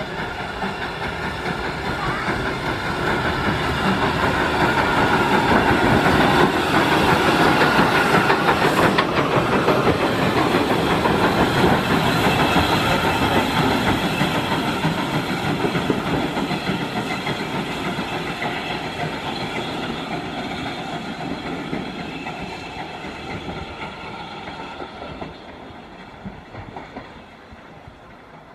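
Hunslet Austerity 0-6-0 saddle-tank steam locomotive running light past at a walking pace. It grows louder as it approaches, is loudest as it goes by about six to twelve seconds in, then fades steadily as it moves away.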